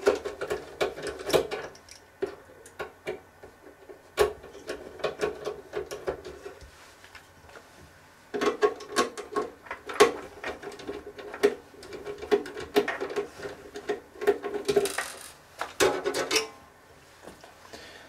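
Small screwdriver turning the case screws out of the back of a NAS enclosure: irregular light clicks and metal-on-metal scraping, with a sharper click about four seconds in and a busier run of clicking over the second half.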